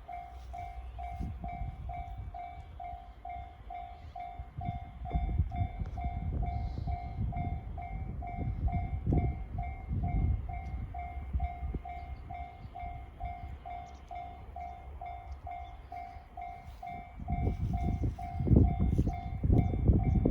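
Electronic level-crossing warning bell of the JR standard type ringing steadily, about two dings a second. Under it a low rumble grows much louder about 17 seconds in.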